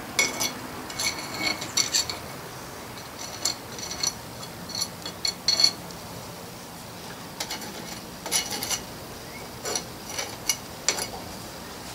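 A metal molding spoon scraping through molding sand and clinking lightly against a cast-iron handwheel pattern, in several short groups of scrapes and ticks, as the sand is cut down to the parting line of a sand mould.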